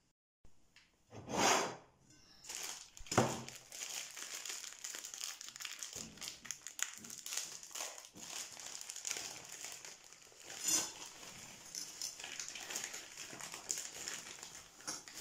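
Plastic spaghetti packet crinkling as it is handled and opened, with two louder crackles in the first few seconds, then a steady crackly rustle as the dry spaghetti is tipped out of the packet into a glass bowl.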